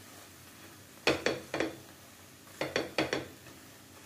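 Plastic slotted spatula clicking and tapping against a non-stick tawa while a paratha is pressed and turned. The clicks come in two quick groups of about three each, about a second and a half apart.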